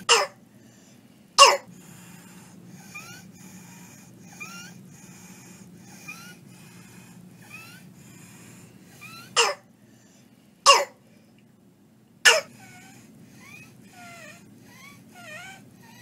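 An infant patient simulator makes the sounds of croup: a harsh, barky cough five times (twice near the start, three times about two-thirds of the way through). Between the coughs, a faint, high-pitched inspiratory stridor comes with each breath. Together they are signs of upper airway obstruction, with croup likely.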